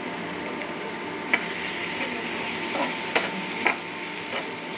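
Chopped onion, carrot, capsicum and green chilli frying in ghee in a frying pan with a steady sizzle. A spatula stirring in the pan knocks against it three times with sharp clinks.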